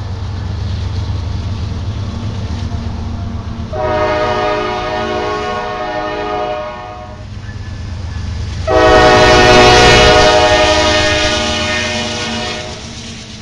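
Diesel freight locomotive air horn, from the lead unit, a GE C40-9W, sounding two long blasts about two seconds apart, the second louder and longer. Underneath is the steady low rumble of the passing train's locomotives and cars on the rails.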